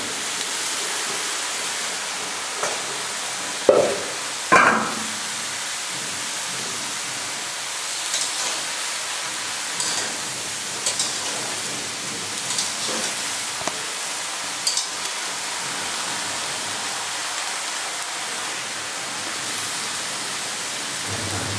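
Freshly added vegetables (eggplant, drumstick and others) frying in a steel wok on a gas stove with a steady sizzle, stirred by hand, with a sharp knock about four seconds in and lighter clicks of the spoon against the wok later on.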